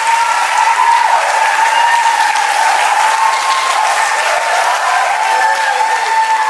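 Steady applause with cheering voices calling out over it as a dance song finishes.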